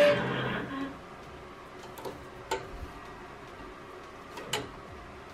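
Melco EMT16X multi-needle embroidery machine ending its stitch-out: the machine noise dies away about a second in. After that there is a low background and a few scattered clicks.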